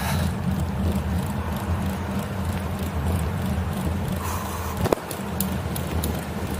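Steady low rumble of road noise, with a single sharp click about five seconds in.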